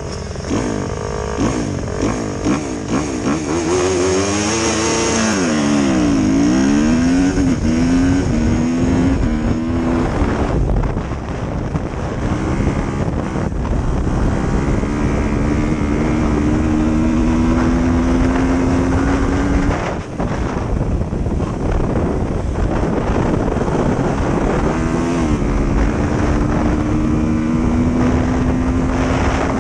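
Kawasaki dirt bike engine racing at full throttle on an ice oval, its pitch climbing slowly as it pulls. In the first several seconds other engine notes cross and swoop around it as the pack starts. The throttle is chopped briefly about ten and twenty seconds in, before each long pull.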